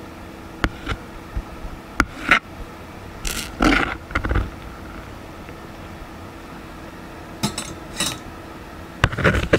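Kitchen knife cutting soft tofu into cubes on a plastic cutting board: a few sharp taps of the blade on the board in the first couple of seconds, then scraping as the blade slides through and across the board. Near the end the knife scrapes the cubes off the board into a stainless steel pot, with a quick cluster of knocks. A faint steady hum runs underneath.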